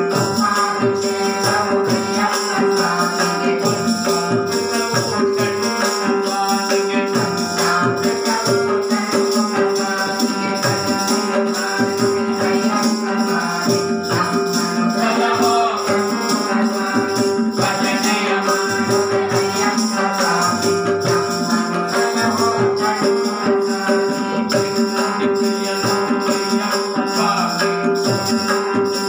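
Indian devotional music: a harmonium plays the melody over a steady drone, with a hand-played barrel drum and metallic jingling percussion keeping an even beat.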